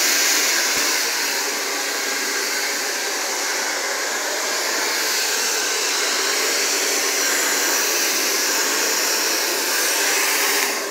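Handheld blow dryer with a concentrator nozzle running steadily as a constant rush of air while hair is blown through with a comb. It is switched off at the very end.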